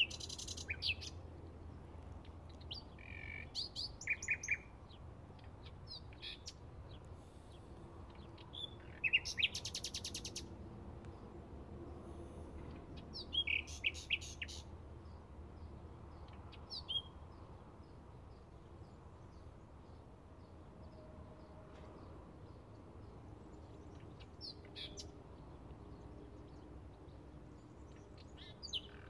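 Bluethroat singing: short, varied song phrases a few seconds apart, some made of rapid repeated notes, with pauses of several seconds between them.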